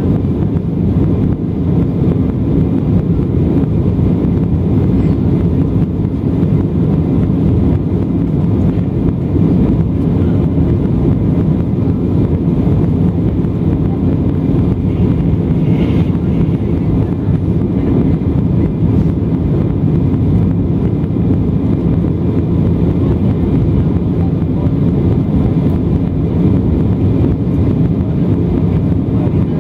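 Steady, deep cabin roar of an Embraer E190 climbing after takeoff: its GE CF34-10E turbofan engines and the rushing airflow, heard from inside the passenger cabin.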